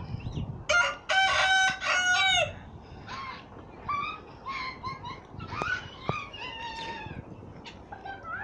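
A domestic hen gives a loud, drawn-out squawking call in two parts about a second in, then the fowl keep up a string of short chirping calls that rise and fall in pitch.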